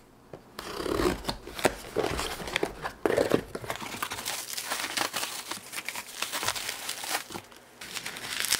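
Packing tape torn off a cardboard box, then a long run of crinkling and rustling from bubble wrap and cardboard flaps as a bubble-wrapped bottle is pulled out.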